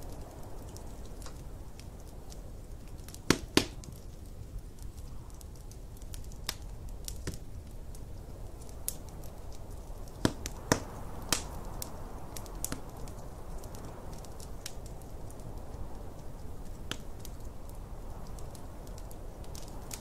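Wood fire crackling in a fireplace, with scattered sharp pops, the loudest a pair about three seconds in and three more around ten to eleven seconds in, over a steady low rush of snowstorm wind.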